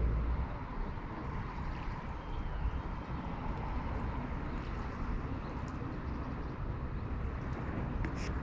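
Steady outdoor lakeside background with a low rumble and a few faint clicks.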